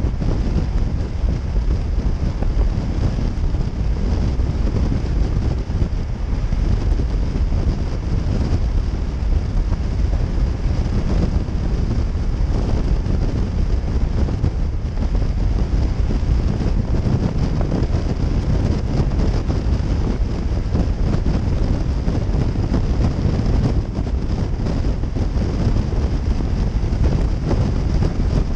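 Heavy wind rushing over the microphone of a camera on a motorcycle cruising at steady highway speed, with the bike's engine and tyre drone underneath and a thin, steady high whine.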